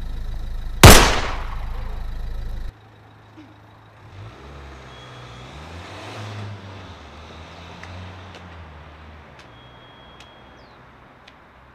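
A single pistol shot about a second in, loud and sharp with a short ringing tail, over a low steady hum that cuts off abruptly soon after. Then a car engine is heard faintly driving off down a street, its pitch rising and falling.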